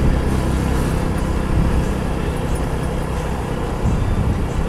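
Motorcycle engine running steadily while the bike is ridden along a road.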